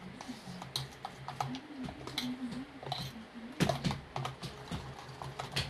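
A metal spoon stirring beaten eggs with chopped onion and chilli in a stainless steel bowl: irregular light clicks and scrapes of the spoon against the steel, with a few louder clinks past the middle.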